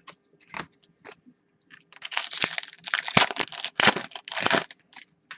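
Soft clicks and rustles of trading cards being handled, then about two and a half seconds of dense crinkling from a plastic card-pack wrapper, with a few more clicks near the end.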